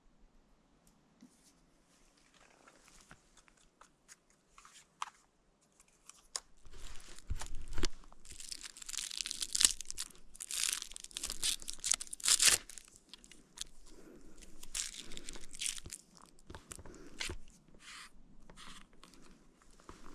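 Irregular crunching, crinkling and tearing noises that start about six seconds in, after a quiet stretch, and carry on unevenly with many sharp clicks and scrapes.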